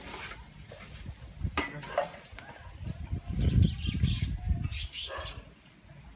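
Birds chirping in short, scattered calls, with a stretch of low rumbling thumps in the middle that is the loudest sound.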